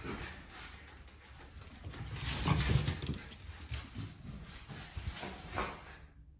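Wire fox terriers romping on a hard floor: claws clicking and scrabbling, with scuffles and thumps that are loudest about halfway through. The sound cuts off abruptly near the end.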